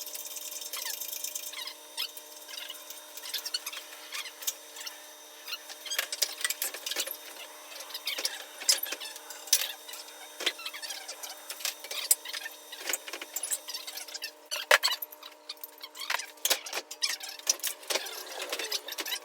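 Scattered metallic clicks, clinks and knocks of hand tools and parts during engine installation work, over a faint steady hum.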